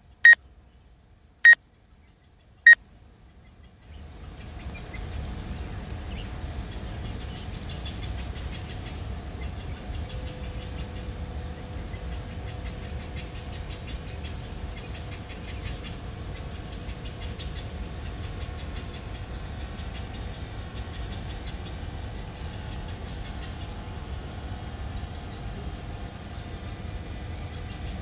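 Drone remote controller beeping: three short high beeps about a second apart, a warning while the DJI Mavic Air hovers close to the birds. From about four seconds in, a steady low rumble with a faint hum takes over.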